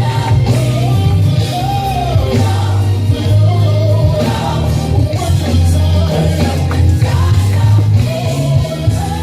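Gospel praise team singing live with a band, a sung melody over a heavy, steady bass line.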